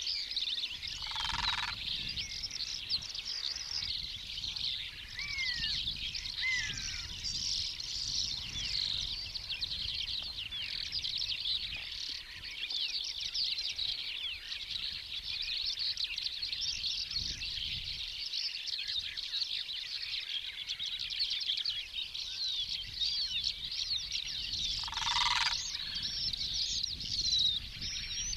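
A dense chorus of many small birds chirping and trilling without pause, over a low rumble of wind. Two short, louder calls stand out, about a second and a half in and again near the end.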